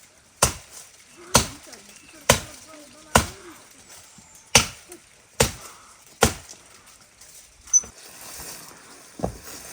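A series of sharp chopping strikes, about nine in all, roughly one a second, the last two fainter.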